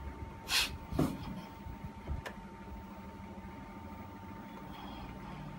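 Quiet room tone with a steady electrical hum, broken early on by a short hiss and then two soft clicks within the first two and a half seconds.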